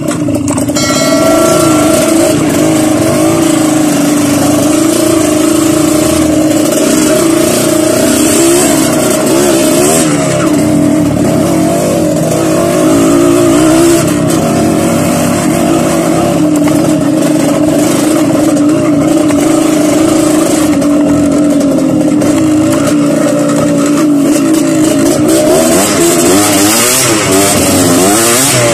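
Dirt bike engine running as the bike is ridden, its pitch rising and falling with the throttle, heard loud and close with a steady hiss.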